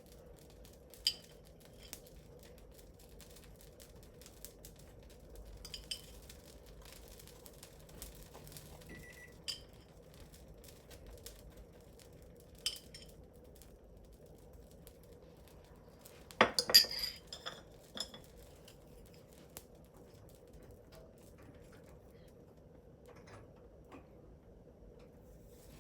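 Dishes and cutlery handled in a kitchen: scattered light clinks and taps with short ringing, and a louder clatter of tableware about two-thirds of the way through.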